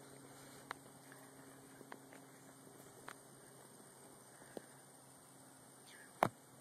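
Faint background hum and hiss with scattered soft clicks, and one sharper knock about six seconds in.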